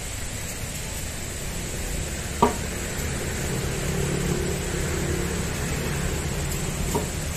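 Steady outdoor background hiss with a low rumble of road traffic; a vehicle's engine hum swells from about halfway through, and one sharp click sounds about two and a half seconds in.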